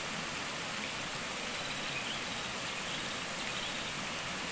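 Steady rushing of flowing water, with a few faint, short, high chirps over it.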